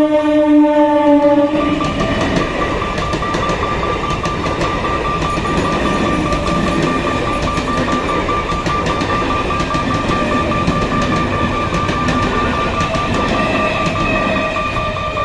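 Electric multiple unit (EMU) local train's horn sounding, stopping about a second and a half in. The train then runs past at speed with a steady rush, its wheels clacking over the rail joints.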